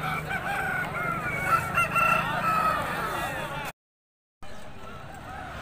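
Roosters crowing: a long drawn-out crow with other fowl calling over it. The sound cuts off suddenly about two-thirds of the way through, and after a short gap fainter fowl calls and voices come back.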